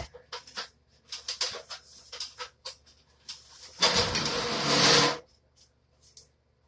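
Handling and rummaging noises: a run of small clicks and taps, then a loud rustling scrape lasting about a second and a half, about four seconds in.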